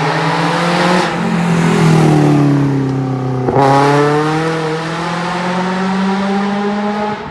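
Car engine running hard. Its note sags, breaks sharply about three and a half seconds in, as at a gear change, and then climbs steadily as it revs up again.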